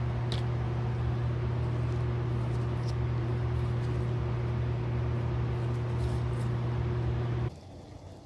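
A mains-powered machine running with a steady electric hum and a noisy whir, switched off abruptly near the end.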